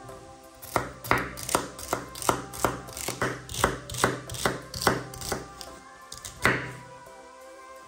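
Kitchen knife chopping celery stalks on a wooden cutting board: about a dozen crisp cuts at roughly three a second, then a pause and one louder final chop near the end. Background music plays underneath.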